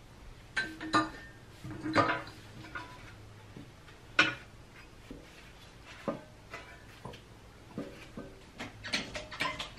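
Scattered metallic clinks and knocks of steel parts and tools being handled and positioned on a hydraulic shop press, with the sharpest clanks about 2 and 4 seconds in and quicker clicking near the end.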